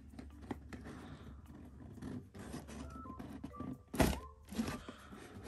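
Hands handling a rigid black cardboard gift box, with small taps and light rustling. About four seconds in comes a louder sharp knock as the close-fitting lid is pulled up off the base.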